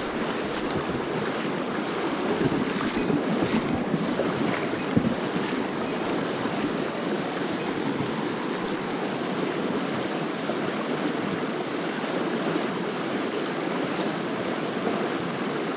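Mountain stream water rushing over rocks in a steady, even wash.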